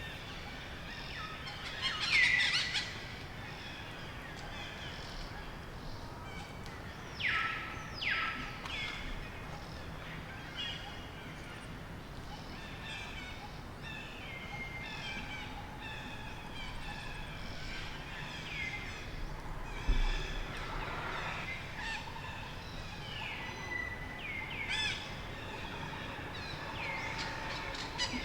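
Forest ambience with many birds chirping and trilling, a few louder calls standing out above the rest.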